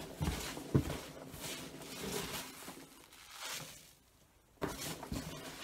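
Handfuls of polystyrene packing peanuts rustling and squeaking as they are scooped out of a cardboard box and dropped into a plastic bin. There are a couple of dull knocks near the start and a short pause near the end before the rustling starts again.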